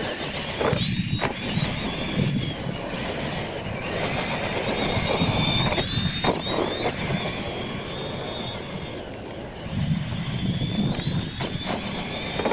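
Electric R/C monster trucks racing on dirt: a high motor and gear whine that rises and falls with the throttle, with a few sharp knocks as the trucks land off the ramps.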